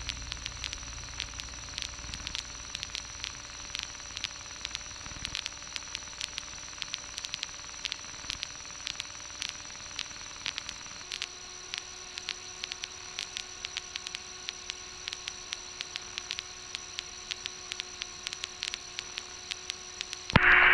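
Aircraft headset intercom hiss with rapid crackling static and a faint steady electrical whine that shifts lower about eleven seconds in. A low rumble underneath stops about five seconds in.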